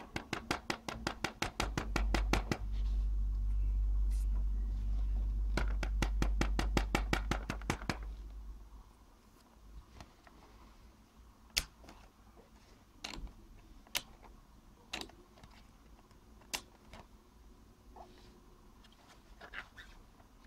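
Hard plastic clicking as a 3D-printed PLA cigarette case is handled: two runs of rapid clicks, about ten a second, over a low rumble of handling, then single sharp clicks every second or two.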